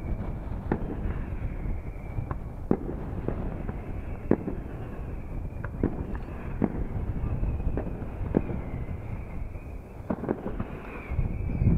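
Aerial fireworks shells bursting: a string of sharp bangs at irregular intervals, roughly one a second, coming thicker and louder near the end.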